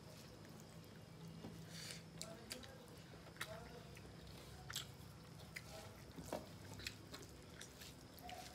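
Quiet eating sounds: chewing and small lip smacks, with soft clicks of fingers mixing rice on metal plates, over a faint low hum.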